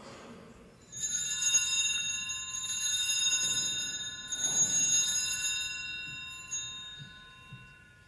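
Altar bells rung at the elevation of the chalice after the consecration. They are struck about a second in and again about four and a half seconds in, each ring holding several high tones that fade away.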